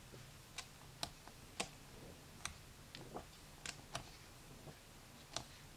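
Pages of a hardcover picture book being turned by hand: a scatter of faint, short paper clicks and flicks at irregular intervals.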